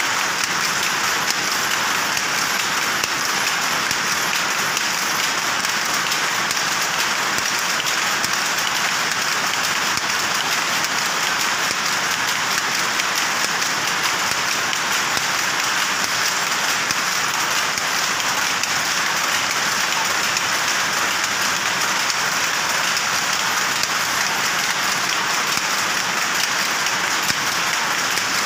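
Powerloom running at speed: a dense, fast, steady mechanical clatter.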